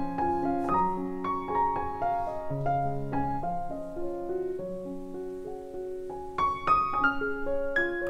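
Background piano music: a gentle melody of held notes, with a run of sharper, brighter notes about six and a half seconds in.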